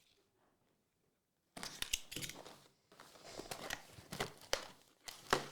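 Trading card packaging crinkling and tearing as it is opened by hand: a run of crackly rustles with sharp snaps, starting after a brief quiet moment.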